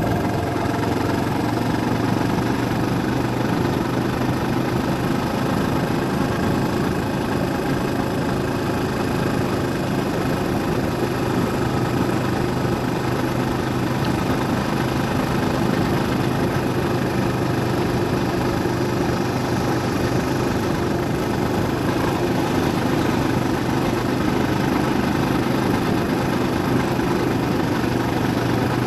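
A vehicle's engine running steadily with road noise while driving along a road, with no change in speed or pitch.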